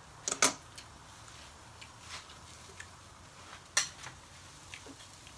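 Metal fork clinking and tapping against grilled oyster shells and dishes: a few sharp, short clicks, the loudest a pair about half a second in and another just before four seconds.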